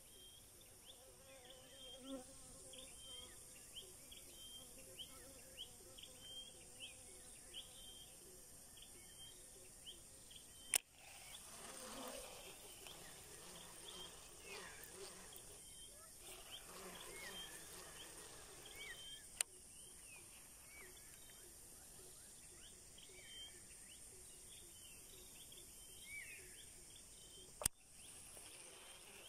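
Forest insects droning steadily with a high hiss, with many short chirps repeating over it. Three sharp clicks cut through, about a third of the way in, past the middle and near the end.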